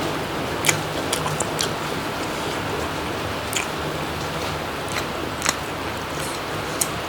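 Eating sounds: several short, sharp crunches and clicks of biting and chewing food, spread unevenly over a steady background hiss.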